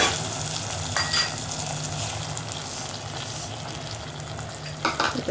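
A spoon stirring and scraping in a metal pot of milky vermicelli and sago payasam, with a steady hiss under it and a couple of clinks of the spoon against the pot near the start.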